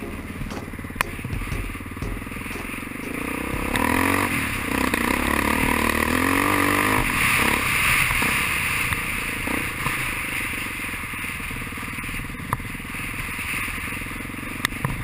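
Off-road motorcycle engine running while riding a gravel dirt track, revving up and down from about four to seven seconds in. A few sharp clicks stand out over the engine.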